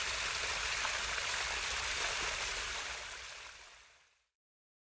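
Steady rush of flowing water, which fades away over its last second or so.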